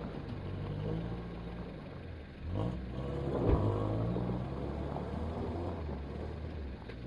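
An off-road 4x4's engine running at low revs. It picks up with a rising pitch about a third of the way in and then settles back. A single sharp thump comes about halfway through.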